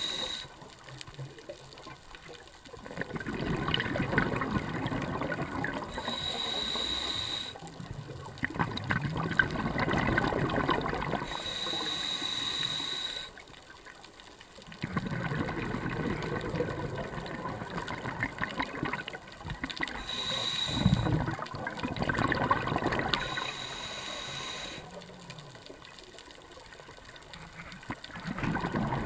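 Scuba diver breathing through a regulator: each inhale is a short hiss with a thin whistle, and each exhale is a longer rush of bubbling, several breaths in a row.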